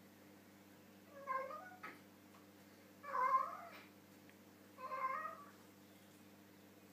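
A cat meowing three times in short, talking-like calls about two seconds apart while eating from its bowl with its mouth full; the middle call is the loudest.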